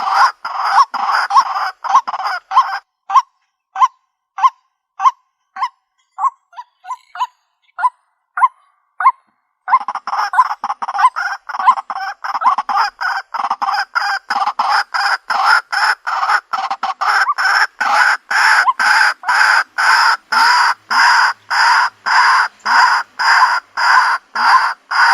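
White-breasted waterhen calling: a long series of loud, harsh, repeated notes. For the first ten seconds or so the notes thin out into short, separate notes, then about ten seconds in a dense run resumes at about three notes a second.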